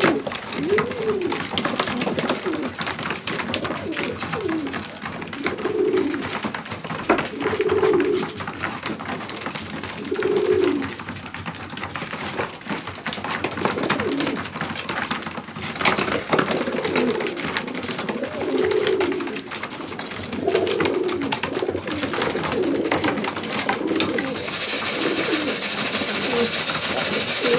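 Pigeons cooing over and over, a run of low, rolling coos, mixed with scattered sharp clicks and taps. A steady hiss comes in near the end.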